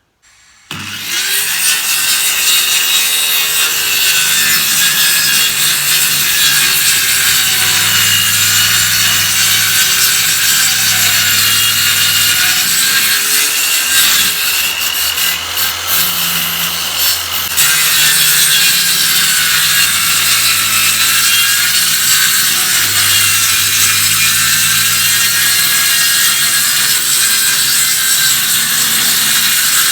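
A saw cutting through a sheet of chipboard. It starts about a second in and runs steadily, with a brief change in tone around the middle.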